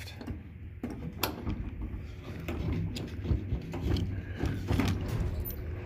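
Scattered clicks and light metal knocks from an elevator door's hanger rollers and operator linkage being handled by hand, the sharpest about a second in, over a steady low hum.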